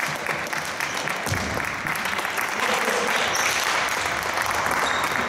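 Spectators applauding in a basketball sports hall, the clapping swelling about a second and a half in and carrying on steadily.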